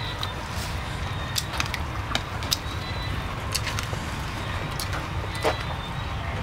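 Eating sounds: scattered sharp clicks and small crunches from fingers handling fried rat and green mango salad, and from chewing, over a steady low rumble.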